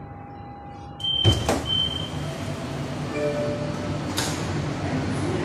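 Metro train's sliding passenger doors opening about a second in: two sharp knocks from the door mechanism with two high beeps. Steady noise follows, with another sharp knock near the end.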